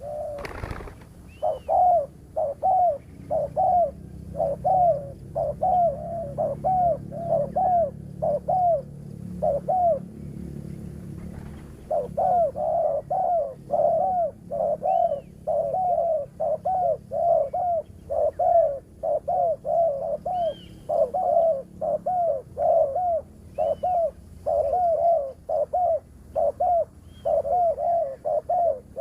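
Spotted doves cooing: short low coo notes repeated at about two a second, with a brief pause about ten seconds in, as a decoy dove and a wild dove call at a trapping snare. A single knock sounds right at the start.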